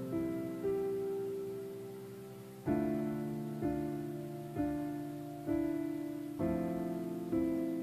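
Background music: slow, gentle solo piano, with a note or chord struck about once a second and left to fade.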